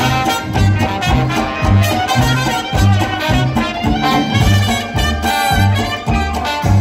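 Traditional New Orleans jazz band playing an up-tempo dance tune live, with cornet, clarinet and trombone in the lead over a low bass line that pulses about twice a second, guitars, banjo and washboard.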